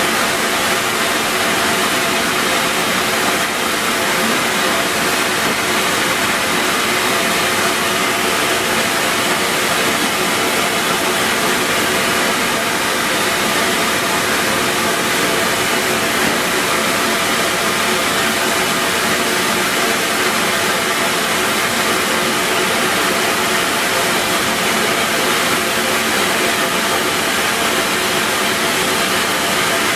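Steady, loud hiss of steam from a Walt Disney World Railroad steam locomotive, with a faint even hum under it and no chuffing.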